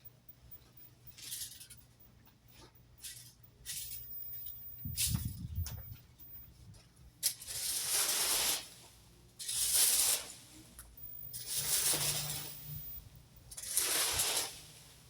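A rake dragging through dry leaves: a few light scratches at first, then long sweeping strokes about every two seconds.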